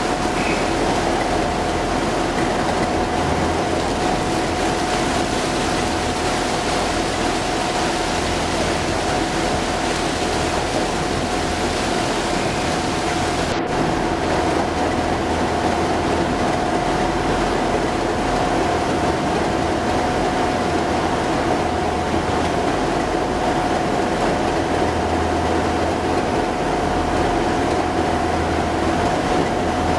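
Class 37 diesel-electric locomotive (37417) idling at a standstill: its English Electric V12 diesel engine runs steadily with a constant high whine over a low rumble that swells and eases every few seconds.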